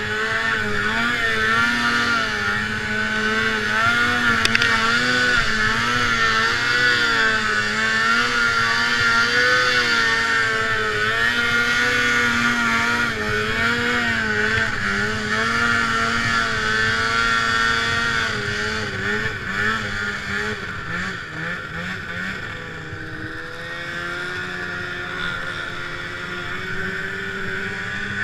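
Snowmobile engine running under throttle as it climbs a snowy slope, its pitch rising and falling with the throttle. About two-thirds of the way through it eases off and runs lower and quieter.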